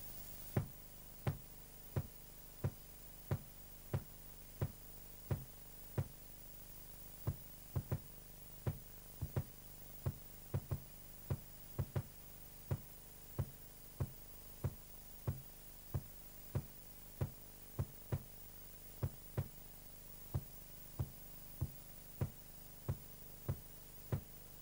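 Bass drum played with a compression-spring foot pedal: single kick strokes at a steady pace of about one and a half per second, with a few quick double strokes in the middle.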